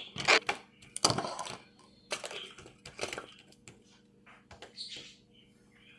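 Slime being pressed into a small plastic keychain container: scattered clicks and handling noises, loudest in the first second and a half and growing fainter after.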